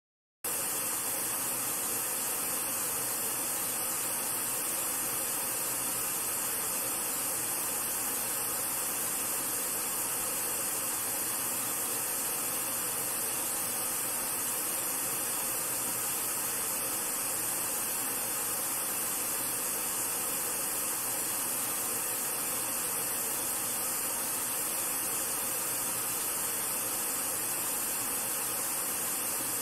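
Steady white noise test signal played through a Sony SRS-HG10 Bluetooth speaker with Extra Bass mode off. It starts about half a second in, after a brief silence, and holds at an even level, with a bright, hissy top end.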